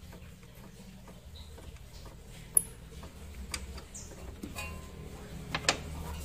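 Irregular metallic clicks and clinks of a 14 mm wrench working loose the engine-mount bolts, the sharpest about two and a half seconds in and a small cluster near the end, over a faint low hum.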